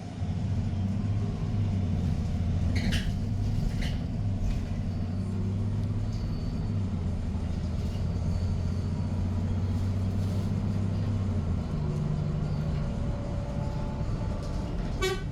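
A vehicle's steady low engine rumble, with a couple of faint clicks about three and four seconds in.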